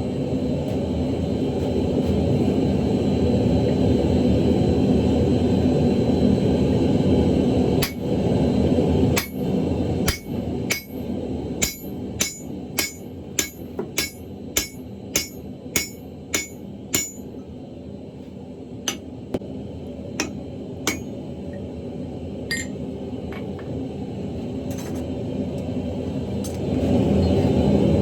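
Hand hammer striking hot steel on an anvil, about two ringing blows a second for some ten seconds, then a few spaced blows, while forging an axle-shaft hammer head. A steady low roar runs underneath, rising again near the end.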